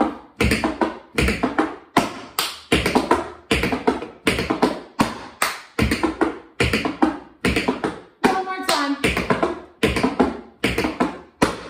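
Metal-tipped tap shoes striking the floor in quick cramp rolls (ball, ball, heel, heel), as tight clusters of sharp taps about two a second with no pause.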